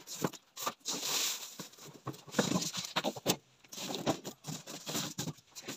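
Handling noises: irregular knocks, clicks and rustling as a plastic-wrapped air fryer is set down on a table and moved into place.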